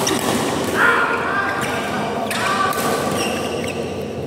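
Badminton doubles rally: a few sharp racket strikes on the shuttlecock, mixed with shoes squeaking on the court mat as the players move.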